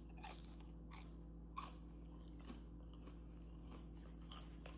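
Close-up crunching and chewing of homemade corn tortilla chips: three distinct crunches in the first two seconds, then softer, fainter chewing.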